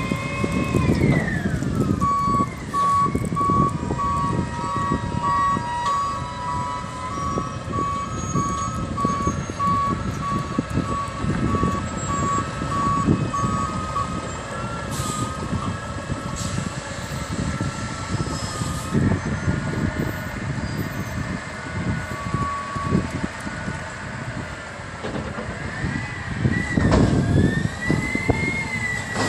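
DaDee Mantis front-loader garbage truck running, with its reverse alarm beeping at one steady pitch for about twelve seconds while it backs up. The engine's pitch drops about a second in and rises and dips again near the end as the truck manoeuvres.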